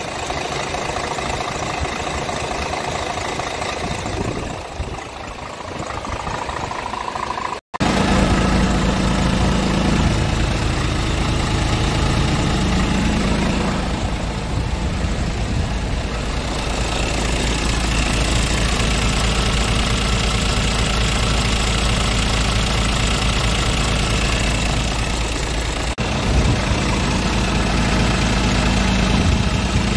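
Scania R truck's diesel engine idling steadily. After a brief cut a little under eight seconds in, it is louder and deeper.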